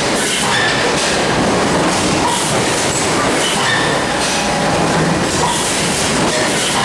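Steady, loud running noise of a moving vehicle, with short high squeaks cropping up here and there through it: the abnormal noise being recorded.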